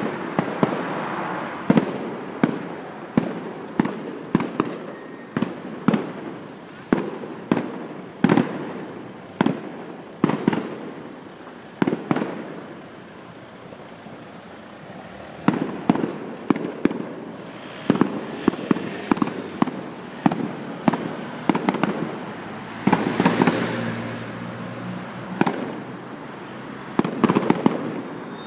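Fireworks display: aerial shells bursting one after another, about one sharp bang a second, each trailing off briefly. The bursts ease off about halfway through, then pick up again, with a close cluster of bangs near the end.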